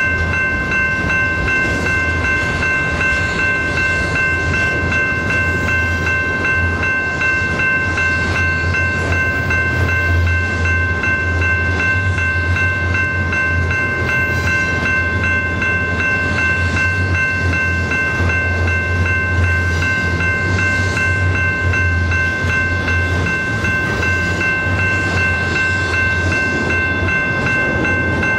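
Double-stack intermodal container train's well cars rolling steadily past, a continuous low rumble with a constant high-pitched ringing tone held on top.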